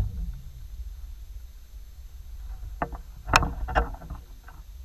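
Hooked catfish splashing at the surface beside a kayak: a low steady rumble, then three short splashes about three seconds in.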